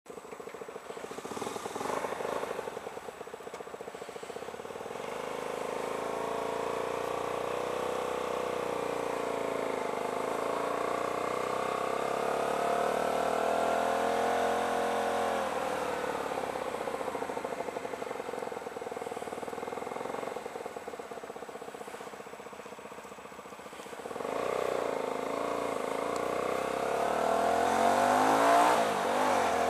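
Hyosung GT125R's 125 cc V-twin engine running as the motorcycle rides off, its pitch rising and falling with the throttle. It revs louder and higher near the end.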